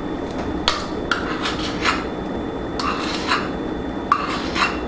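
Measuring spoon scooping baking powder from its can and scraping level against the rim: four groups of short scrapes, about a second apart.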